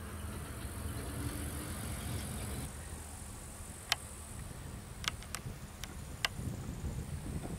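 Outdoor background noise: a steady low rumble with a high hiss over it, broken in the second half by about five brief sharp clicks.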